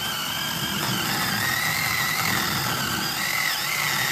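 Zeeksaw 8-inch cordless mini chainsaw cutting through a solid oak log. Its electric motor and chain run with a steady whine that wavers slightly in pitch.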